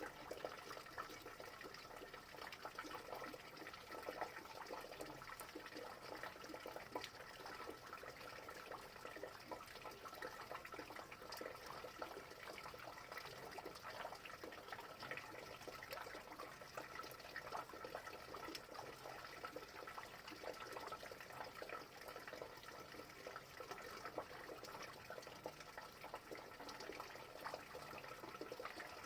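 Rain falling steadily: an even hiss dotted with many small drop ticks, unchanging throughout.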